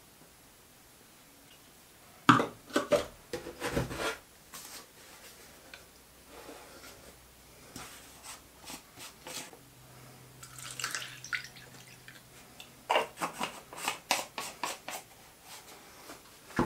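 Hands setting a small metal lathe chuck into a plastic cup and handling plastic chemical bottles, heard as clusters of sharp clicks and knocks, with a brief pour of blackening solution into the cup midway through.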